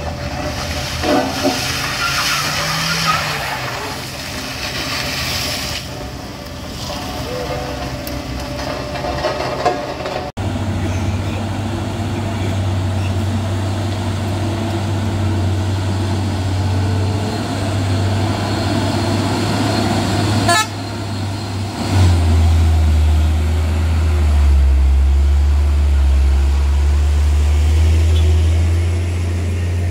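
Heavy diesel truck engines straining on a steep, rough hill climb, a deep steady drone that turns lower and louder about two-thirds of the way through. Near the start, short horn toots and voices mix with the traffic.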